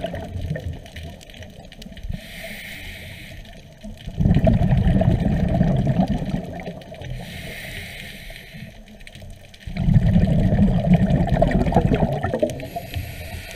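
Scuba diver breathing through a regulator, heard underwater: a hiss on each inhale alternating with a rush of bubbling exhaust on each exhale, in a slow cycle about every five to six seconds.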